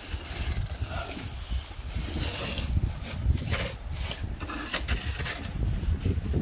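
Plastic snow shovels scraping and pushing snow across a driveway in short, irregular strokes, with wind rumbling on the microphone.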